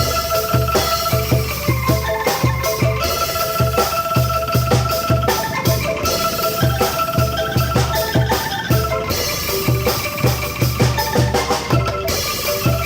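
Angklung ensemble playing a tune: ringing bamboo notes over a steady, regular drum beat.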